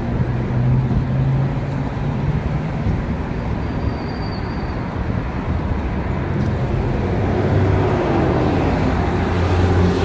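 City street traffic at an intersection: car and minibus engines running and vehicles passing close by, a steady wash of road noise with a low engine hum.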